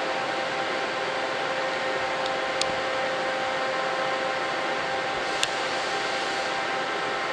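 Steady machine hum with a constant pitched tone, like fan-cooled equipment running. Two brief sharp ticks come about two and a half and five and a half seconds in.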